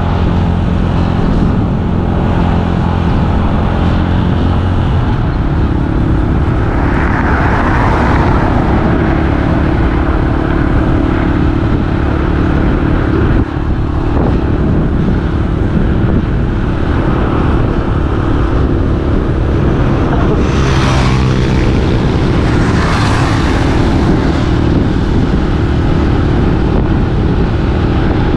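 Vehicle engine running steadily at road speed, its pitch shifting a few times, with wind and road noise rushing over the microphone. The rushing swells louder about a quarter of the way in and again past two-thirds of the way through.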